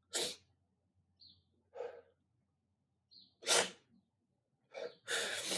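A person's short, sharp breaths, about five of them, each a brief noisy puff.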